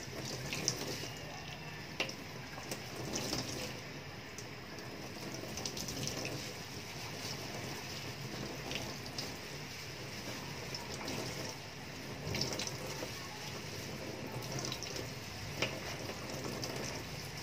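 Tap water running steadily into a stainless steel sink, splashing over gloved hands as an ink-soaked part is rinsed under the stream. A few sharp clicks sound over the running water.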